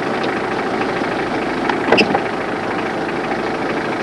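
Safari vehicle's engine idling steadily, with one brief sharp sound about halfway through.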